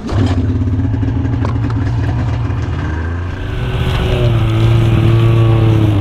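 Polaris Indy snowmobile engine running, starting abruptly and going steadily. About halfway through, a hiss comes in above it and the engine pitch rises a little, easing off again near the end.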